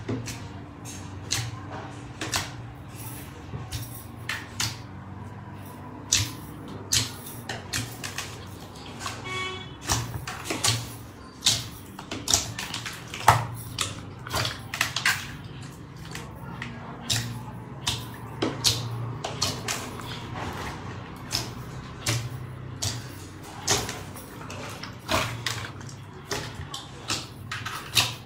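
Slime being pressed and squeezed by hand, giving irregular crisp clicks and pops, a couple a second, over a steady low hum.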